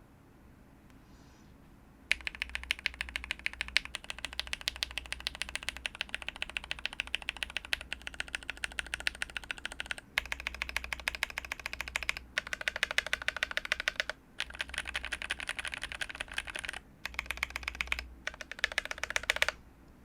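Fast typing on a mechanical keyboard fitted with tactile switches, a KBD67 V3 with an FR4 plate and GMK keycaps. The key strikes start about two seconds in and run in several bursts with short pauses between them.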